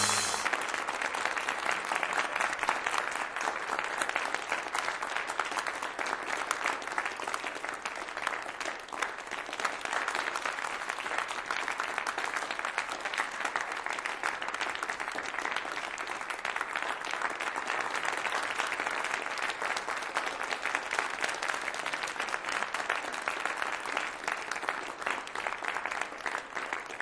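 Applause from a large crowd, a dense, steady clatter of many hands clapping.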